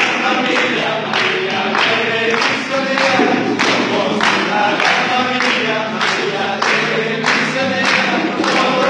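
A group of men singing together in unison, with steady rhythmic hand clapping at about two claps a second.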